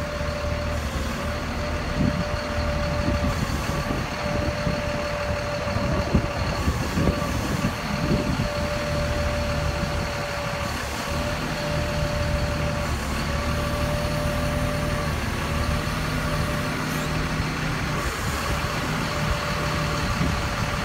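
Forklift engine running steadily under load as it lowers a catamaran boat, with a steady high whine that breaks off briefly every second or two and a few low knocks.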